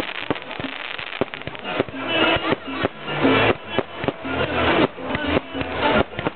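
Fireworks popping and crackling in quick, irregular bangs, with loud music with a beat coming in about two seconds in.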